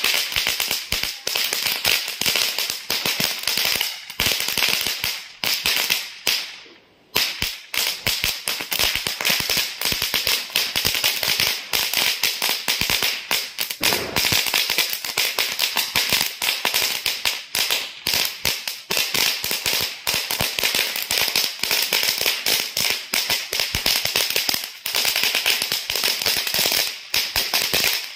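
A 1000-wala chain of small eco-friendly firecrackers going off in a rapid, continuous crackle of pops, with one short break about six or seven seconds in.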